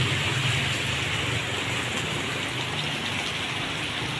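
Steady rain falling on a street and roofs, an even hiss.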